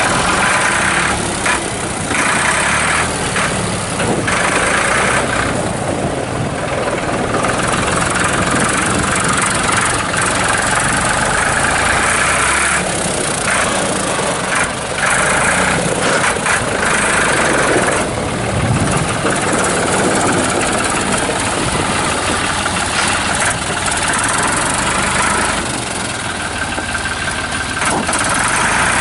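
1999 New Holland 3430 utility tractor's diesel engine running, its note changing now and then as the tractor is operated.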